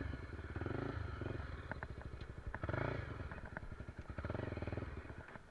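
Trail motorcycle engine running, its revs rising and falling in several swells, then fading away near the end.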